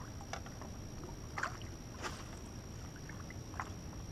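Water lapping against a small fishing boat's hull, with a few faint short slaps, over a low steady rumble.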